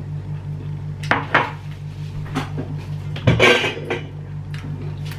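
Plates and cutlery clinking as they are handled on the table: two sharp clinks about a second in, then a louder, longer clatter a little past three seconds, over a steady low hum.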